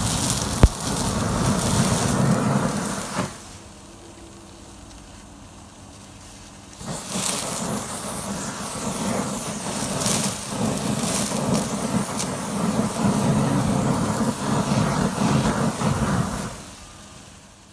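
An aerosol can of WD-40 Specialist cutting oil spraying onto burning magnesium swarf, and the flames flaring up loudly with the oil feeding the fire. This comes in two long spells, a short one of about three seconds and then about ten seconds, with a quieter stretch of steady burning between them, and there is a single sharp click just under a second in.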